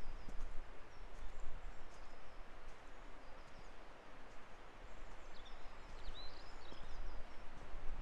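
Countryside ambience: small birds chirping, clearest about five to six and a half seconds in, over a steady rushing background noise.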